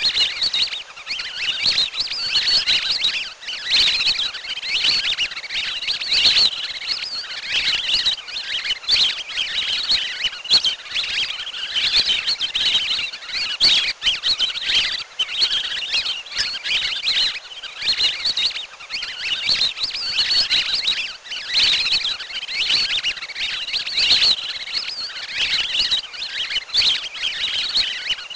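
A flock of lesser whistling ducks (pikikat) calling: many high, thin whistled chirps overlapping without a break.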